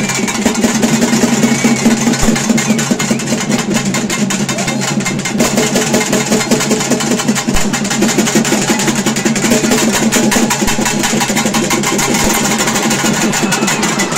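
Loud festival music: rapid, dense drumming over a steady low drone, running without a break.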